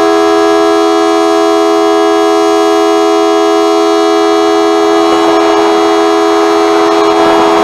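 Model 2T two-tone outdoor warning siren sounding a loud, steady chord of tones that holds level without rising or falling. The tone is low-pitched, which the recordist takes for the siren not sounding right.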